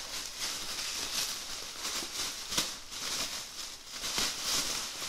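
Packaging rustling and crinkling as it is worked open by hand, with a few small clicks.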